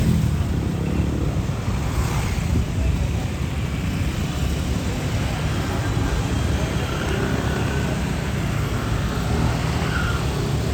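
Steady low rumble of motor-vehicle engine and road noise.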